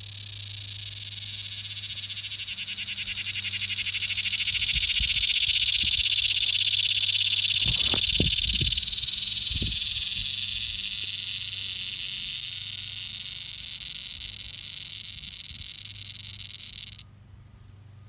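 Cicada calling up close: a loud, high, buzzing drone that swells to a peak, eases off, then stops abruptly near the end.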